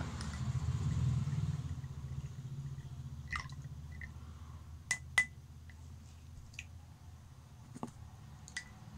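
A thin stirring stick clinking against a glass tumbler of water a handful of times, short sharp ticks with a brief ring, over a low steady hum that fades over the first few seconds.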